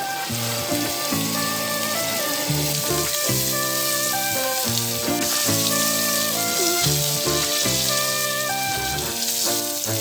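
Background music of held, stepping notes laid over a steady sizzle of food frying in a pan.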